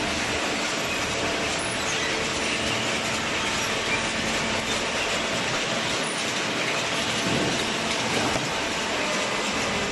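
Hydraulic cardboard baler running, a steady mechanical noise with a faint constant hum underneath.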